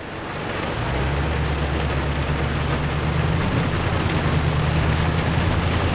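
Rain and tyre noise heard inside the cab of a 2020 Toyota Tundra TRD Pro driving on a wet dirt road. The truck's 5.7-litre V8 comes in as a steady low drone about a second in and grows slightly louder.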